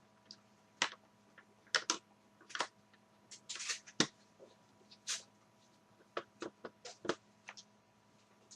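Irregular light clicks and taps of hands and a small screwdriver working on an HP DV6000 laptop's plastic case while taking out its screws.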